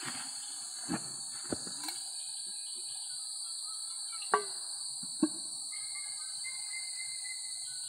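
Steady high-pitched drone of jungle insects, with a few light knocks and two sharper clinks about four and five seconds in as a metal cup is picked up and handled.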